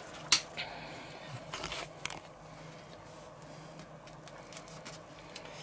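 A sharp click, then faint crackling as a knife saws through the crisp crust of a baked choux pastry cream puff.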